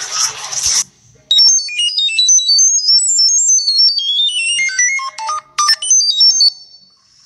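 A fast tune of high, pure electronic beeps, like a ringtone melody, with notes skipping up and down and dropping lower near the end. A hissing noise cuts off just before it, in the first second.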